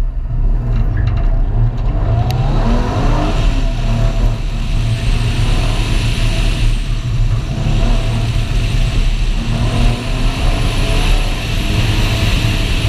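Mercury Cougar's engine pulling hard during an autocross run, over a heavy low rumble. Its pitch climbs and drops several times as it revs up and comes off the throttle.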